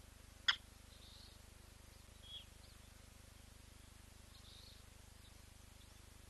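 Bird calls: one sharp, click-like note about half a second in, then a few faint short high chirps.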